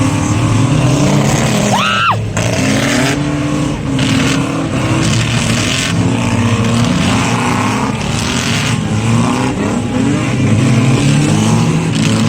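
Car engine running hard and revving, its pitch climbing and dropping over and over, with a brief high squeal about two seconds in.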